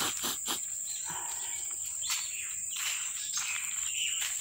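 Insects, crickets or cicadas, drone steadily in a high whine. Footsteps crunch on dry leaf litter over it, with sharp crackles near the start.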